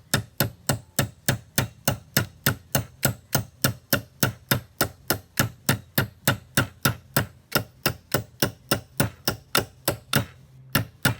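Hammer tapping a roll pin punch to drive the bolt catch roll pin into an AR-15 lower receiver: steady light strikes, about four a second.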